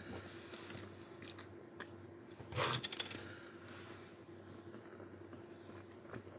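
Drinking from a plastic water bottle: a short rustle of handling and sipping about two and a half seconds in, with faint clicks around it.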